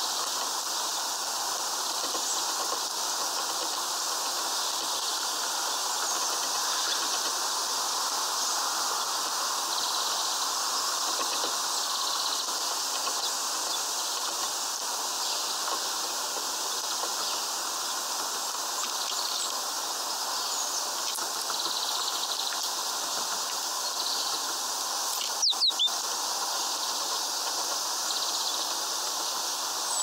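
Steady outdoor background hiss with faint, scattered chirps of small birds. About 25 seconds in, a quick cluster of three sharp clicks.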